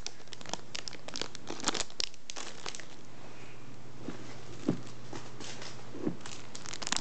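Clear plastic packaging of bagged squishy toys crinkling as they are handled. There is a quick run of crinkles over the first two or three seconds, then only a few single crackles.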